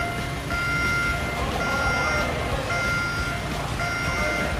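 Electronic warning beeper sounding a high beep about once a second, each beep about half a second long, over a steady low machinery rumble.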